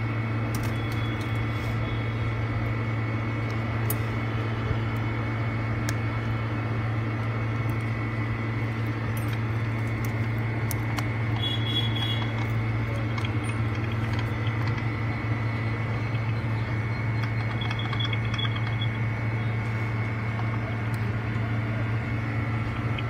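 Steady low hum with a thin high tone over it, with scattered light clicks and taps as a smartphone's small parts are handled and pressed into place.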